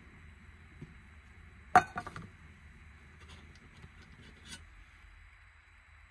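Aluminium cook pot and lid clinking as they are handled: one sharp clink a little under two seconds in, a few lighter knocks right after it, and one more small knock later on, over a faint steady hiss.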